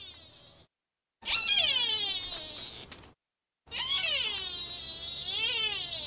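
Long, wavering, meow-like animal calls, each gliding down in pitch. The end of one call comes first, then two long calls with dead silence between them. The second call rises and falls again near its end.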